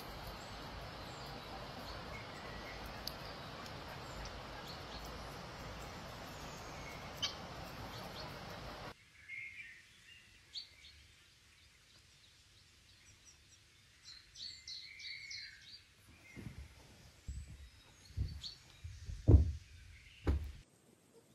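Steady outdoor ambient noise with small birds chirping now and then. About nine seconds in it drops to a quiet room with a few faint chirps. Near the end come several soft thuds as a thick blanket is folded and patted down, the loudest a second or two before the end.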